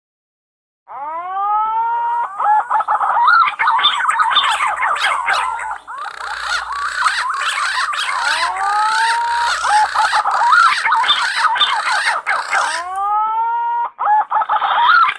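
Green pigeons (punai) calling: several birds' whistled notes overlapping, gliding up and then falling. The calls start abruptly about a second in after silence.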